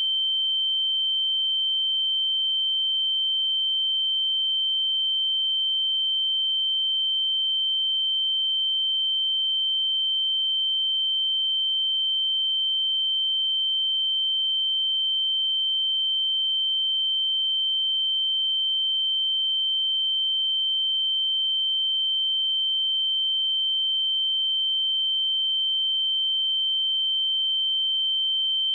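A steady 3111 Hz sine-wave test tone: one pure high-pitched tone held at constant pitch and level.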